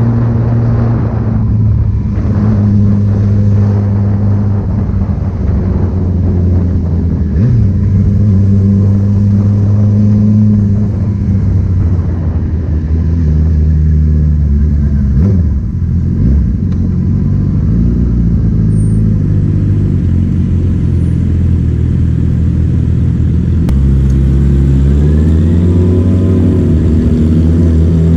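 Yamaha XJ6 motorcycle's engine and exhaust running loud, the note dropping and rising several times with the throttle and climbing again near the end.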